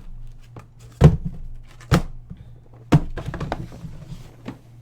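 Three dull thuds about a second apart, with lighter clicks and handling noise between them: objects being handled and set down.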